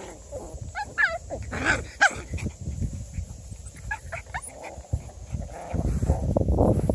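Moyen poodle puppies whimpering and yelping, several short high squeaky calls in the first two seconds. Low rustling and scuffing runs underneath and grows loud near the end.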